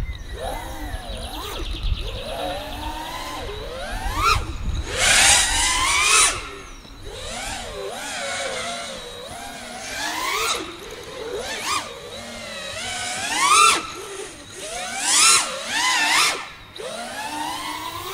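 FPV freestyle quadcopter's four brushless motors and propellers whining, the pitch sweeping up and down with the throttle, with several loud full-throttle punches. Wind rumbles on the onboard camera's microphone for the first six seconds or so.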